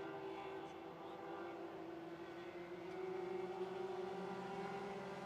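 Lightning sprint car engines running steadily at the slow pace of a caution period, with a slight rise in level and pitch about three seconds in.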